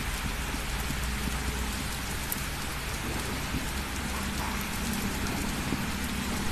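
Heavy rain falling steadily, a dense even hiss with a low rumble underneath. The uploader suspects the downpour comes from an approaching typhoon.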